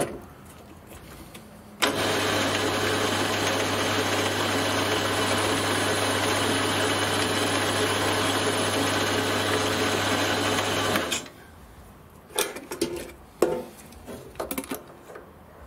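Metal lathe starting up and running steadily with a low hum under a broad whirring noise, taking a turning pass on a small steel screw. It cuts off abruptly about nine seconds later. A few light clicks and knocks of tools and parts follow.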